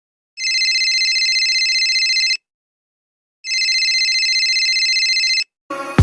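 Telephone ringing twice, each ring a fast-trilling high tone about two seconds long with a one-second pause between them.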